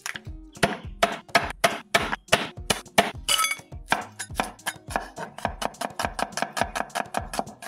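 Kitchen knife slicing a red onion on a wooden cutting board: sharp taps of the blade against the board, irregular at first, then a quick even run of about five a second from about four seconds in.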